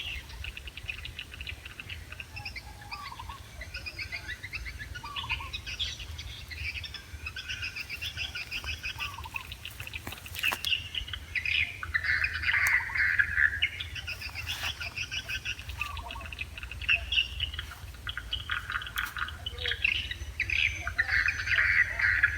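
Wild birds chirping and calling in quick runs of short notes, busier and louder in a couple of stretches, over a steady low rumble.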